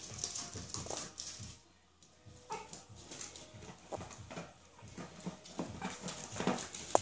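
Chihuahua puppies playing and wrestling: the quick patter and scuffle of small paws on the mat, with a few brief whimpers and yips. A lull comes about two seconds in.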